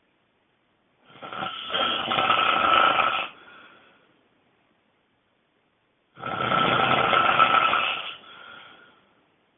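A person snoring loudly: two long snores of about two seconds each, about five seconds apart, each trailing off into a fainter breath, with silence between them.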